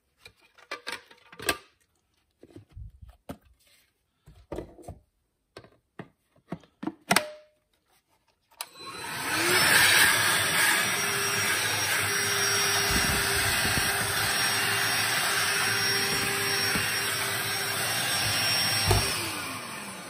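Plastic clicks and knocks of the filter and dust cup being fitted back onto a DeWalt DCV501HB 20V cordless hand vacuum. About nine seconds in, its motor spins up and runs steadily with a rush of air and a steady hum, then winds down near the end.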